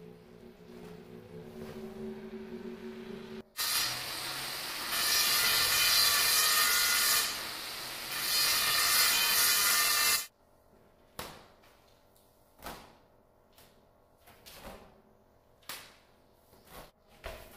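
Angle grinder cutting a strip of black granite: a loud, harsh grinding that starts a few seconds in, eases briefly in the middle and cuts off sharply after about seven seconds. Soft background music comes before it, and scattered knocks and taps follow.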